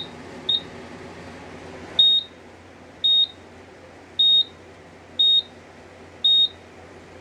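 Silent Knight 5820XL fire alarm control panel's built-in sounder chirping during a lamp test. There are two quick high beeps half a second apart, then from about two seconds in, longer beeps about once a second.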